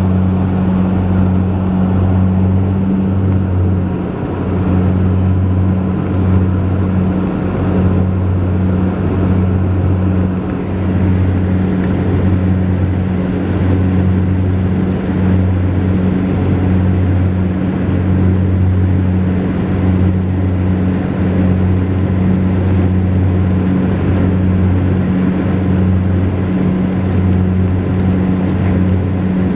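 Twin GE CT7 turboprop engines and four-blade propellers of a Saab 340B droning steadily inside the cabin. It is a deep hum with a slow, even throb every second or two, where the two propellers beat slightly out of step, over a steady rush of engine and air noise.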